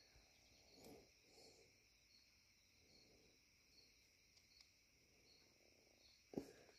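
Near silence, with faint steady high-pitched insect chirping, like crickets, in a rural field. A single faint click comes near the end.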